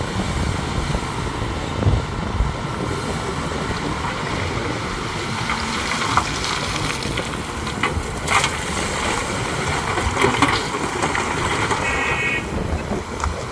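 Heavy earthmoving machinery running steadily on diesel power, with several sharp metallic clanks in the second half and a short beeping tone near the end.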